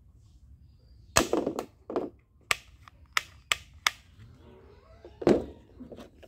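Plastic toy rifle being handled and worked by hand: a string of sharp plastic clicks and clacks, about eight in all, the loudest about a second in and another near five seconds.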